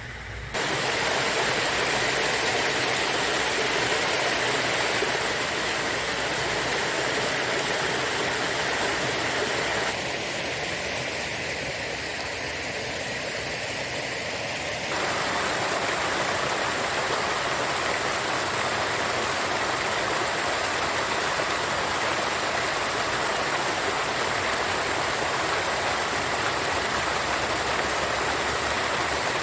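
Shallow river water gurgling and rushing steadily over stones. It sets in abruptly about half a second in and dips a little in level and texture for a few seconds about a third of the way through.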